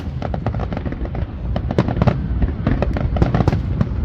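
Fireworks display: a dense, continuous run of bangs and crackling pops over a steady low rumble of bursting shells.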